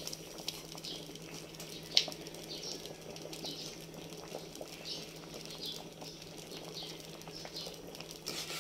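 Thick champorado (chocolate rice porridge) bubbling and plopping in an aluminium pot as it is stirred, with irregular soft pops throughout. There is a single sharp knock about two seconds in, over a steady low hum.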